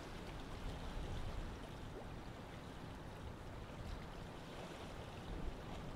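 Outdoor ambience of steady hiss, with wind rumbling unevenly on the microphone.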